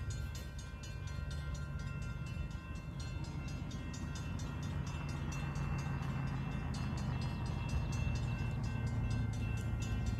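Grade crossing bell ringing in a fast, even rhythm while the low rumble of an approaching train grows steadily louder.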